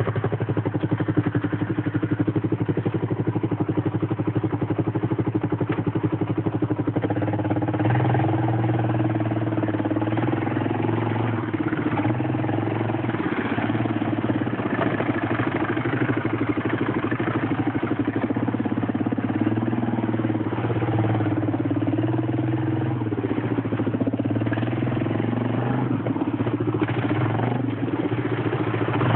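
ATV engine running under throttle. Its pitch steps up about seven seconds in and then wavers up and down as the throttle changes.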